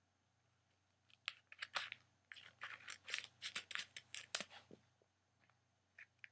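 Vacuum-sealed plastic package being opened: a quick, irregular run of short, crisp plastic crackles and rustles, starting about a second in and lasting about four seconds.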